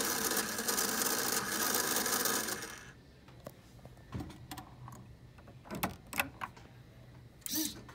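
Small electric motor of a VEX Robotics build whirring through its gears, stopping about three seconds in. Scattered light clicks and knocks follow.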